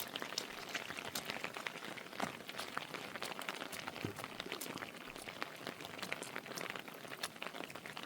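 Heavy rain falling, a steady hiss dotted with many sharp individual drop hits.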